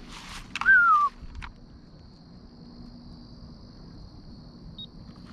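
Steady high-pitched trill of insects. About a second in, a short falling whistle-like call is the loudest sound.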